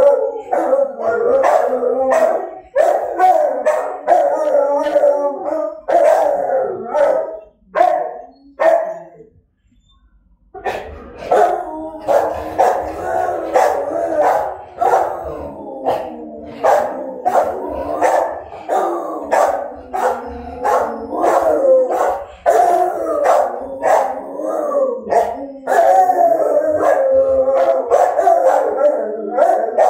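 Two Rottweilers howling together in long wavering calls, with short barks mixed in. The howling breaks off briefly about nine seconds in, then starts again.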